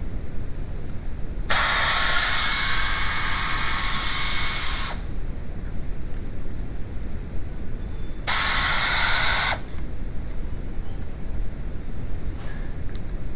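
Two sharp-edged bursts of hissing, the first about three and a half seconds long and the second just over a second, over a steady low rumble.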